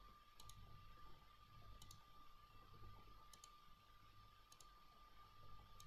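Faint computer mouse clicks, about five quick double clicks spaced a little over a second apart, over a quiet room with a faint steady whine.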